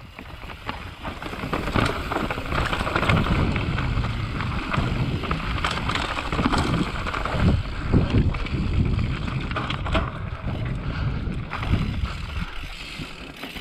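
Mountain bike riding down a dirt trail: tyres rolling over dirt and roots, the bike rattling with frequent short knocks, and wind buffeting the microphone.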